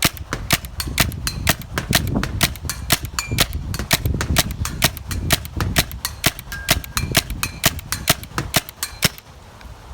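Tacamo Blizzard Elite paintball marker firing paint in a long string of quick sharp shots, about four a second. The string stops about nine seconds in, and a couple more shots follow near the end.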